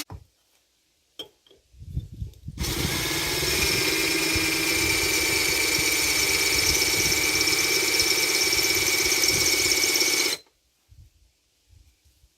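Power drill running steadily, its bit grinding into a hard porcelain flower pot as it breaks through to make a drainage hole. It starts a couple of seconds in, after a few low knocks, runs for about eight seconds and stops abruptly.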